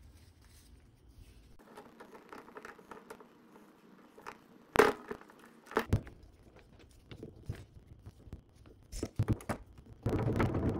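Metal handling noise from fitting the crank handle onto the threaded drive shaft of a White Mountain ice cream freezer's gear frame: scattered clicks and scrapes, one sharp knock a little before halfway, and a denser burst of metal clatter near the end.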